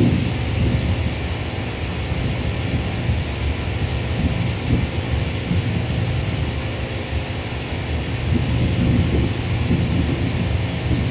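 Distant twin-jet airliner's engines at takeoff power on the takeoff roll: a deep, steady rumble.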